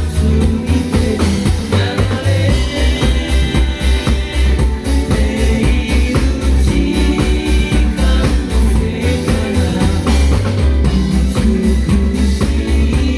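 Live band playing a song: drum kit and bass keeping a steady beat, with a sung or played melody over it.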